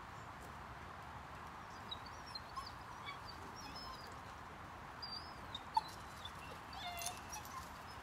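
Birds chirping outdoors: scattered short, high chirps over a steady background hum, with one sharp tap a little before six seconds in and a brief flurry of sharp flutters about seven seconds in.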